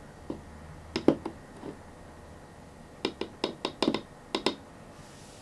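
Light clicks and taps of a plastic paint stirrer scooping ground-up leaf scatter out of a small container. There are a couple of taps about a second in, then a quick run of about eight clicks between three and four and a half seconds.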